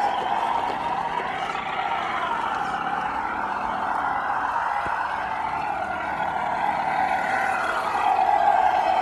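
Electric motor and gearbox whine of an RC Suzuki Jimny scale crawler, its pitch falling and rising as the throttle changes, growing louder about eight seconds in.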